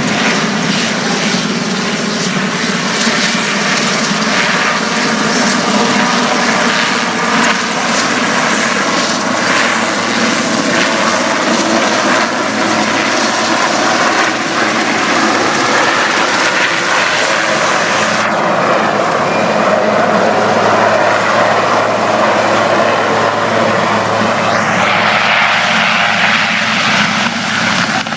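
Firefighting water helicopter hovering low while it fills its water tank, its rotor and engine making a loud, steady noise. The high hiss drops away for several seconds about two-thirds through, then comes back.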